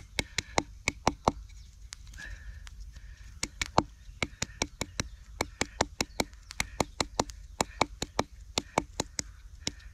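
A short wooden baton knocking again and again on a stinging nettle stem laid across a log, about four strikes a second in runs with short pauses. The stem is being crushed to open it up for cordage fibre.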